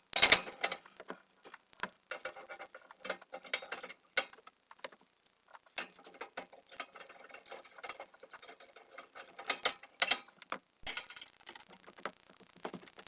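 Irregular sharp clicks from a propane fireplace's igniter, pressed again and again before the burner lights while gas is still filling the line, mixed with softer knocks and rattles. The loudest clicks come just after the start, at about four seconds and at about nine to ten seconds.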